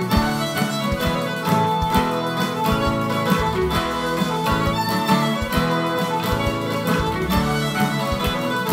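Fiddle playing a jig, a run of quick bowed notes, with low knocks recurring in time under the tune.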